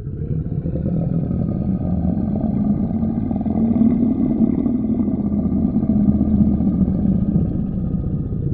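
A steady low engine rumble, like a motor vehicle running, fading in from silence at the start and holding level.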